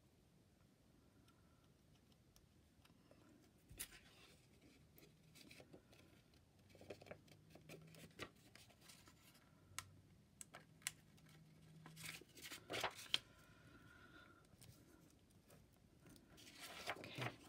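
Faint rustling and scraping of a sheet of printed paper being handled and folded, with scattered small clicks; quiet for the first few seconds, then a louder rustle near the end.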